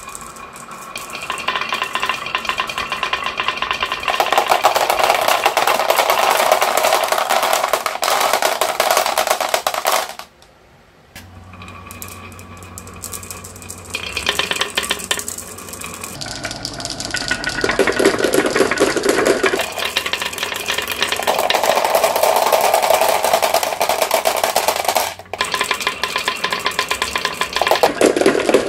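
Many glass marbles rolling and clattering down grooved wooden wave-slope tracks: a dense, continuous rattle of small clicks. It drops out sharply about ten seconds in, builds again, and dips briefly near 25 s.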